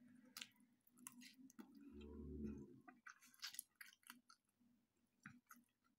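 Quiet chewing of stir-fried cabbage with beef, with many soft, short clicks and smacks. A brief low hum comes about two seconds in.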